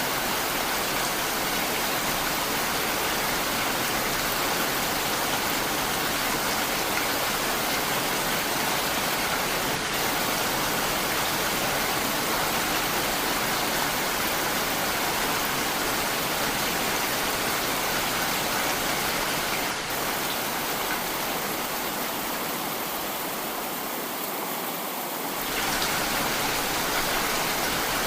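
Heavy rain falling steadily, a dense even hiss. It softens a little about twenty seconds in and returns suddenly to full strength a few seconds before the end.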